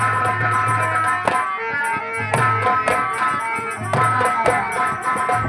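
Instrumental interlude of a Bhojpuri nautanki song: sustained chords for about the first second, then hand-drum strokes, some bending in pitch, with jingling percussion keeping a steady beat.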